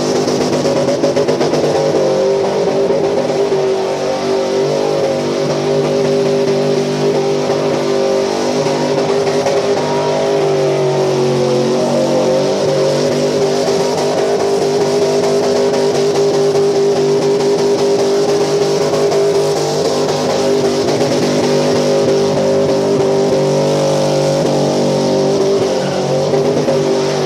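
1978 Chevy K10 pickup's engine held at high revs through a burnout, its pitch staying steady and shifting only slightly a few times, with a steady hiss of the spinning rear tyres.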